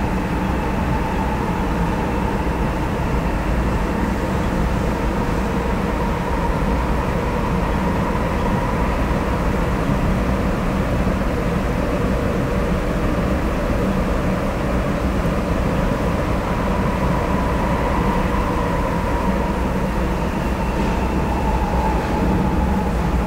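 Sapporo Municipal Subway Tōhō Line train running at a steady speed through the tunnel, heard from inside the car: an even rumble from the rubber-tyred wheels with a faint steady whine over it.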